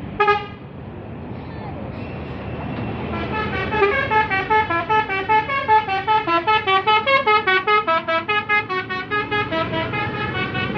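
Bus 'basuri' telolet musical horn giving one short toot, then from about three seconds in playing a quick tune of short notes, about five a second, that steps up and down. Steady engine and road noise runs underneath.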